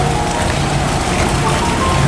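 Background music, a light melody of short held notes over a low repeating pattern, with a steady hiss of noise beneath it.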